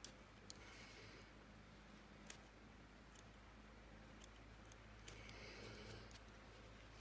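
Near silence broken by a few faint, irregular clicks and two soft scratchy rustles: a felting needle poking a small tuft of white wool into a black wool eye on a needle-felted figure.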